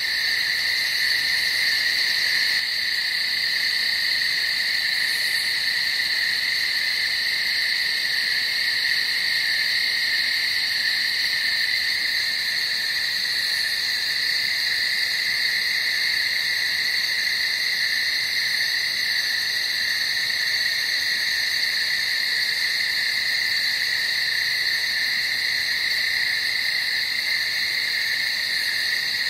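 Dense night chorus of calling frogs, a steady high-pitched din that holds without a break.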